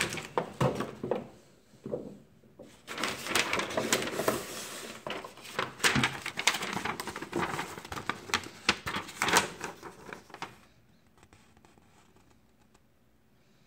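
A folded paper instruction sheet rustling and crackling as it is handled and unfolded, in irregular bursts with sharp crinkles, stopping about ten seconds in.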